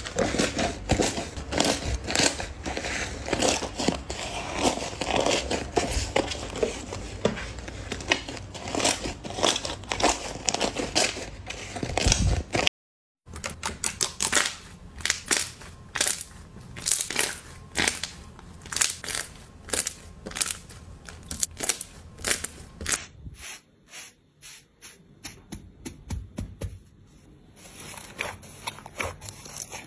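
Hands squeezing, poking and kneading slime, making a dense stream of crackling clicks. There is a brief silent cut about thirteen seconds in, and after it the clicks come sparser and get quieter in the last few seconds.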